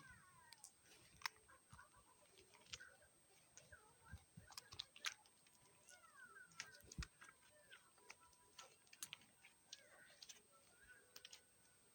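Faint, scattered clicks and crackles of slime with plastic beads in it being kneaded and squished by hand, with a few faint short chirps now and then.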